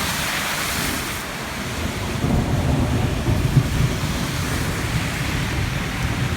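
Heavy rain pouring steadily, with a low rumble coming in about two seconds in and carrying on.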